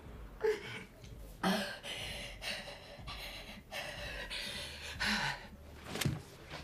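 A woman crying: a series of ragged, gasping breaths and sobs, with one sharper, louder sob about six seconds in.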